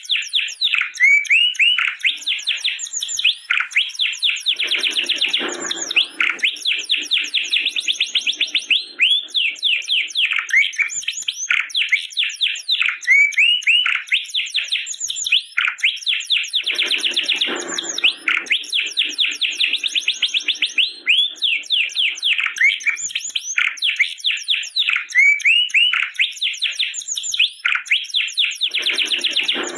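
Domestic canary singing continuously in long, rapid trills and chirps, with a lower, harsher passage recurring about every twelve seconds.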